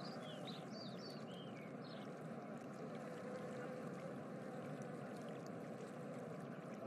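Faint, steady rushing background noise, with a few short high chirps in the first two seconds.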